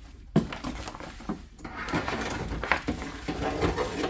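Clear plastic vapor barrier inside a truck door crinkling and rustling as a hand works behind it, with small knocks and two sharp clicks, one about a third of a second in and one past halfway.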